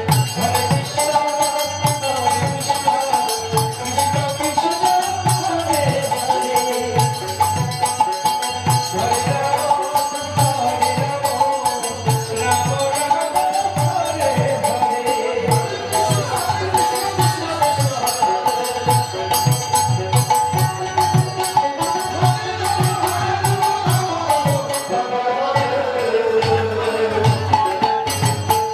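Bengali harinam kirtan: a melody line sung over a khol barrel drum beating a steady rhythm, with metallic percussion jingling continuously.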